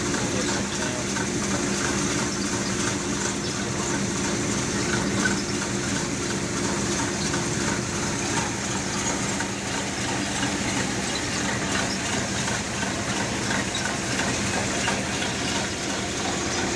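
Tractor-driven threshing machine running steadily while threshing lentils: a constant engine hum under a broad, even mechanical whir.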